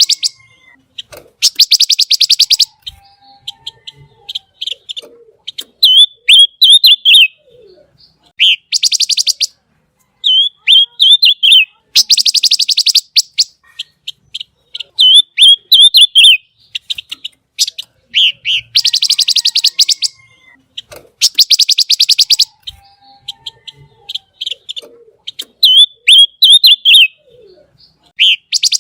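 Pancawarna bird singing in full, loud song. Harsh, rapid trills about a second long (the 'besetan') alternate with quick clusters of sharp, high chip notes (the 'tembakan') in a repeating sequence, with short gaps between phrases.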